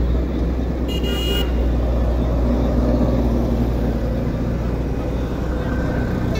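Steady low diesel rumble from a working SANY hydraulic excavator and road traffic, with one short vehicle-horn toot about a second in.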